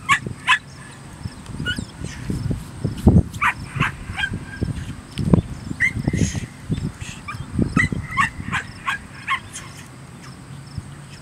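A puppy barking and yipping in quick, high-pitched bursts while being teased toward a bite, with dull low thumps in between.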